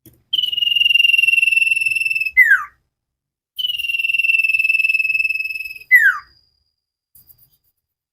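Common iora (cipoh) singing: two long, steady whistled notes of about two seconds each, each ending in a short note that drops quickly in pitch.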